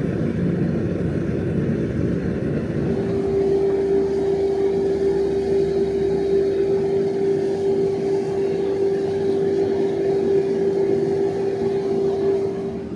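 Electric workshop power tool running steadily, its motor giving a constant whine over a rough grinding noise. The whine grows firmer about three seconds in, and the sound falls away shortly before the end.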